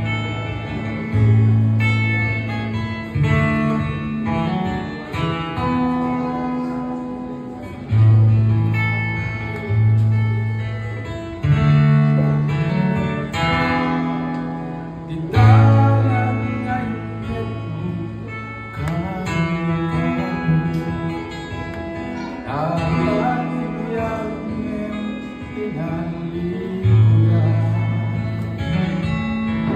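Acoustic guitar strummed and picked, with held low notes changing every second or two, accompanying a man singing into a microphone.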